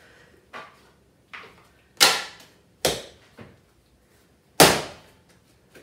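Bread dough slapped down and worked by hand on a stone benchtop while being kneaded to develop the gluten: about six separate thumps, the two loudest about two seconds in and again near the end.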